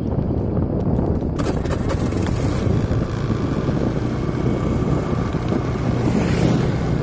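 Steady wind rumble buffeting the microphone over a running vehicle, recorded while moving along a road. A motorcycle passes close near the end.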